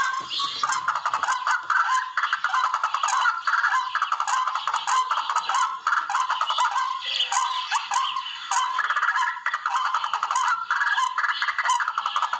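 Barred rail (tikling) calls: rapid rattling, clacking phrases following one another, as played to lure the birds for hunting.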